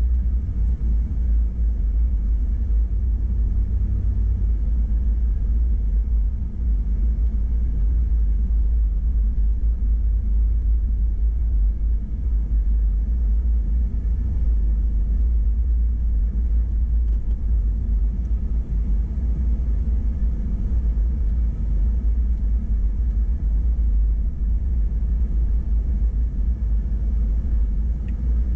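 Steady deep rumble of an off-road vehicle driving slowly over a dirt trail, heard from inside the cab: engine and tyre noise.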